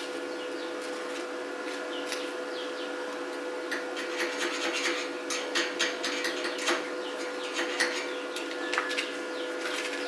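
Irregular light mechanical clicks and taps over a steady hum, the clicks growing busier about four seconds in.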